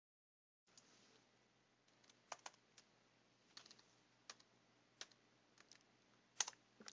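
Faint computer keyboard typing: scattered single keystrokes at an uneven pace, the loudest couple near the end.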